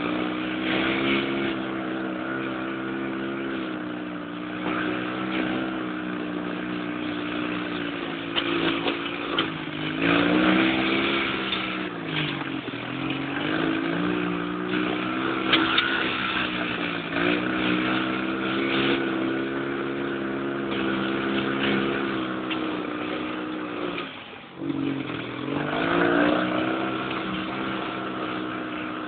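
Dune buggy engine running while driving, heard from on board. Its note drops and then climbs back up twice, about twelve seconds in and again near the end, as the throttle is eased off and opened again.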